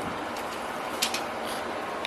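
Soft rustling of plant packaging being handled, with a few light crinkling clicks about a second in.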